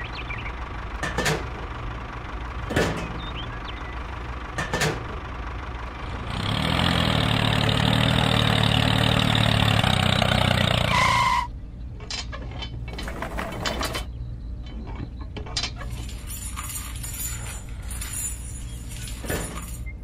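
Tractor engine running, loudest for about five seconds in the middle before cutting off abruptly, over a steady low hum, with a few sharp clicks in the first few seconds.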